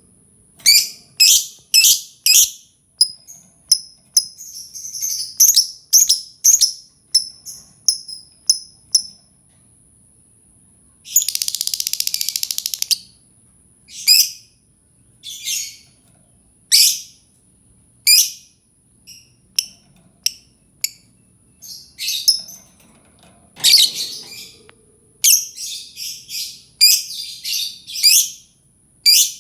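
Lovebird calling in quick runs of short, shrill chirps, with a dense buzzing chatter of about two seconds near the middle.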